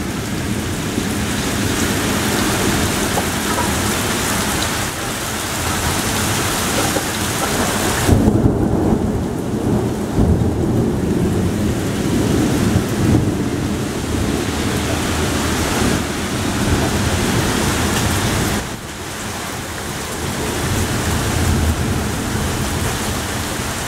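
Torrential rain pouring steadily in a thunderstorm, with a long low rumble of thunder rolling through the middle for about ten seconds.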